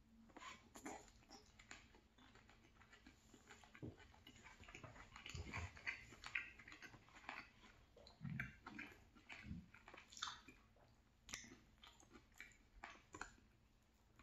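Faint, irregular chewing and mouth clicks of a person eating a mouthful of stir-fried chicken and vegetables.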